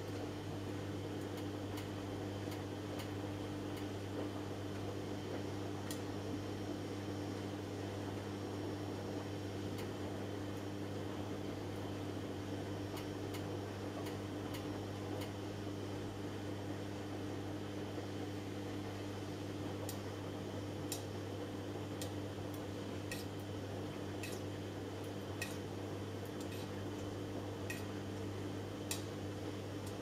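Samsung Eco Bubble front-loading washing machine running a wash, its drum turning the load with a steady motor hum. Scattered light ticks come through, more often in the last third.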